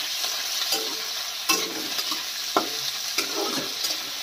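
Sliced onions sizzling in hot oil in a steel kadai, stirred with a metal spatula that scrapes the pan and knocks against it a few times.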